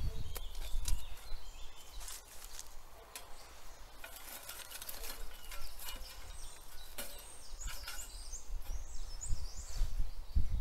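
Small birds chirping, with a run of quick chirps about seven to ten seconds in, over scattered crackles and clicks and low thumps on the microphone at the start and end.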